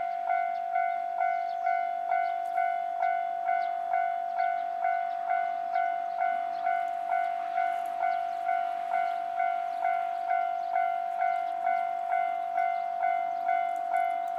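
Japanese railway level-crossing warning bell ringing steadily, one clear tone struck about two and a half times a second, each strike fading before the next.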